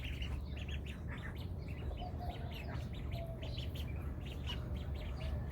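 A group of young ducklings peeping: many short, high chirps overlapping, several a second, over a low steady hum.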